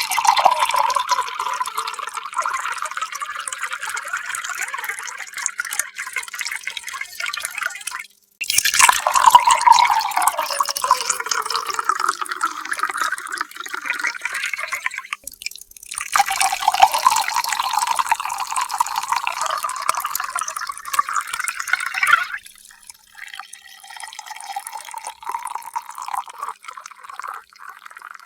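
Water being poured in three separate pours of about six to seven seconds each, with short breaks about 8 and 15 seconds in; during the second pour the tone of the splashing sinks. After the third pour stops sharply, a quieter trickle and drips follow.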